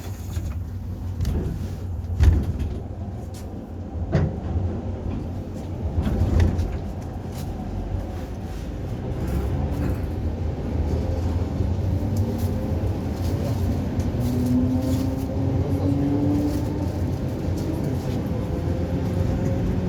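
ED4M electric multiple unit accelerating under traction power: a steady low rumble of the running gear with a few knocks in the first six seconds, and in the second half a traction-motor whine that slowly rises in pitch as speed builds.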